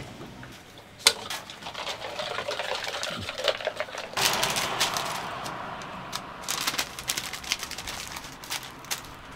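Clicks, taps and crackling rustles of hands at work on a food-truck counter, the loudest a sharp click about a second in. A plastic bottle of sparkling water is poured into a cup of fresh lemon juice, then a paper sleeve rustles as it is folded around a toast.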